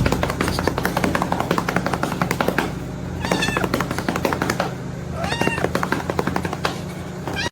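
A domestic cat meowing twice, each a short rising-and-falling call, over music with a fast steady beat.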